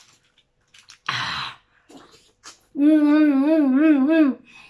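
A woman humming "mmm" with her mouth closed while chewing, one held hum whose pitch wobbles up and down several times for about a second and a half, near the end. About a second in comes a short breathy hiss.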